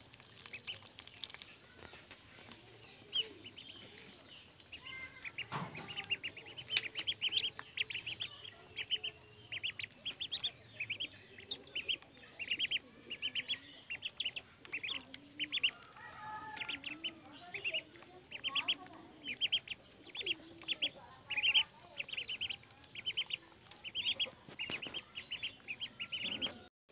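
Ducklings peeping in a steady stream of short, high calls, several a second, as they feed from a metal pan of mash; the calls grow thicker about five seconds in.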